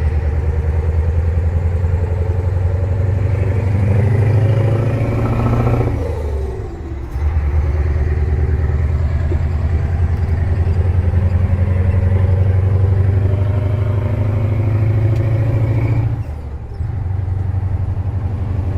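Scania 143H 450's V8 diesel running through an open exhaust pipe: a low, pulsing drone that dips briefly twice, about six and sixteen seconds in, and picks back up each time.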